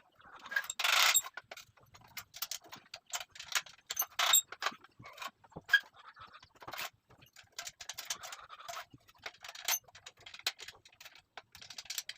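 Metal parts of an angle grinder stand being handled: irregular clicks, clinks and rattles, with a longer scraping rasp about a second in.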